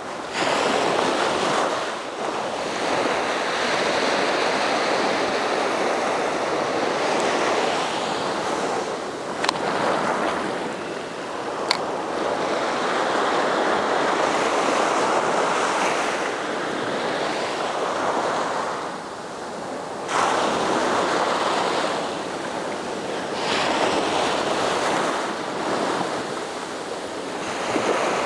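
Small ocean waves breaking and washing up the sand, the foamy wash swelling and easing every few seconds. Two sharp clicks come near the middle.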